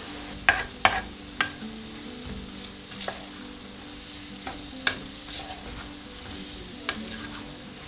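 Sliced onions frying in oil in a metal pan, sizzling steadily, while a wooden spatula stirs them and knocks sharply against the pan about six times, loudest in the first two seconds.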